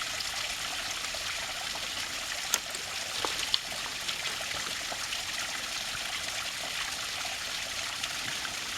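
Small waterfall splashing steadily as an even, high-pitched hiss, with a couple of sharp clicks about a second apart a few seconds in.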